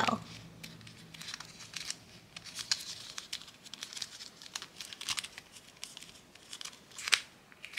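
Thin flexible plastic mold crinkling and crackling as fingers press soft slime into it, a scatter of small irregular clicks with a louder crackle near the end.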